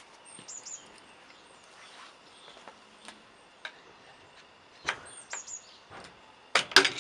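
Scattered light clicks and knocks as the swing-arm pivot bush is worked out of a mountain bike frame, with a louder cluster of sharp knocks near the end. A small bird chirps briefly twice.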